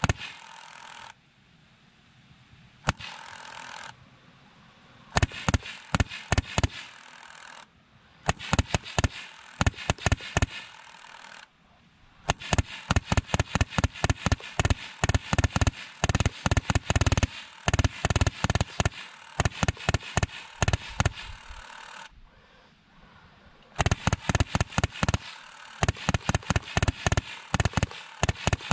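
Rapid small-calibre gunfire in full-auto bursts lasting several seconds, with short pauses between them. The rounds smack into a miniature concrete-block building and knock blocks loose.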